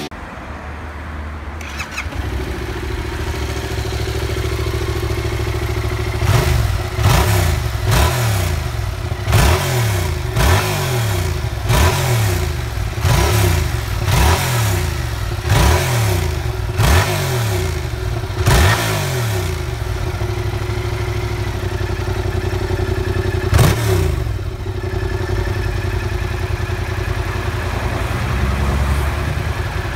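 Yamaha MT-07's parallel-twin engine breathing through an SC-Project S1 slip-on muffler: it starts up about two seconds in and idles. From about six seconds in it is blipped about a dozen times in quick succession, roughly once a second, each rev rising and dropping back, then once more a few seconds later before it settles back to idle.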